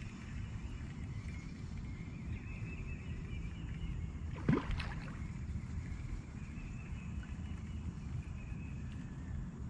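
Kayak on the water with a steady low rumble of wind and water on the microphone, and a single short knock about halfway through.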